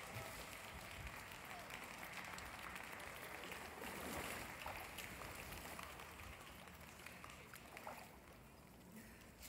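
Pool water splashing and churning as a swimmer swims with strokes, dying away about eight seconds in.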